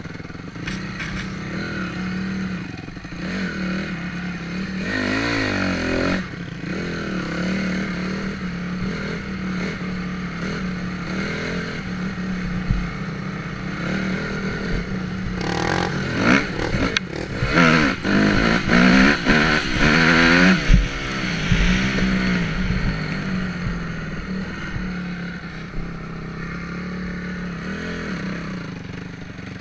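Honda CRF250R dirt bike's single-cylinder four-stroke engine running on the trail, its pitch rising and falling as the throttle opens and closes. The hardest revving comes a little past halfway, and the engine eases off near the end.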